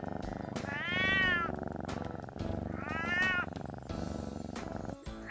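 Domestic cat meowing twice, each meow rising and then falling in pitch, over a continuous low background.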